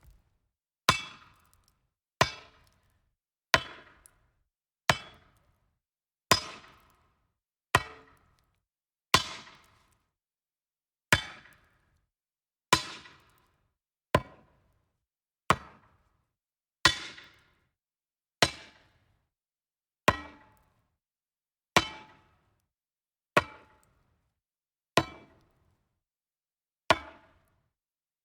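A metal object striking wood: a series of about eighteen separate single strikes, one every second and a half or so, each a sharp knock with a brief ringing tail.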